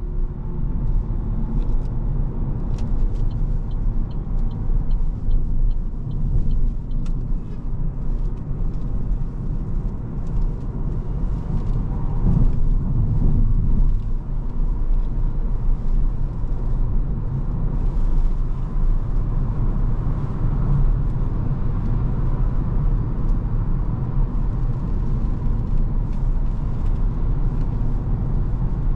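Tyre roar and wind noise inside the cabin of a 2023 Opel Corsa-e electric hatchback at highway speed, with a steady low rumble and no engine sound. A run of light ticks comes a few seconds in.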